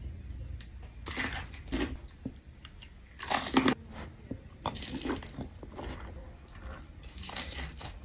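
Crunchy bites and chewing of boneless fried chicken in a few separate bursts, the loudest about three seconds in.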